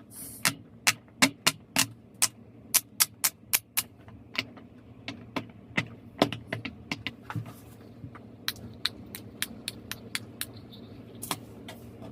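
Silicone pop-it fidget toy bubbles being pressed one after another: a rapid run of sharp pops, about three a second at first, then slower and more scattered, with a low steady hum underneath.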